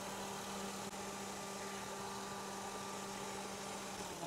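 Honda Ridgeline's 3.5-litre VTEC V6 idling, a steady even hum.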